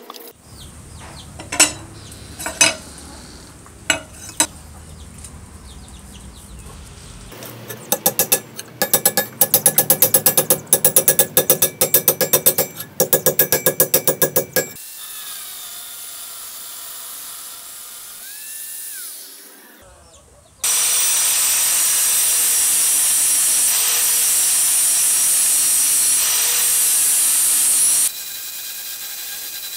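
A few scattered sharp metal clinks, then a long run of rapid hammer blows on a steel knife blade resting on a steel anvil block. Near the end an angle grinder runs steadily and loudly on the blade for about seven seconds before the level drops.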